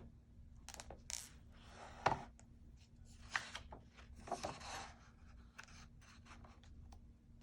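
Faint handling noises from a book being held and its pages moved: scattered light clicks, scrapes and paper rustles, the most distinct ones about two seconds in and a little before five seconds.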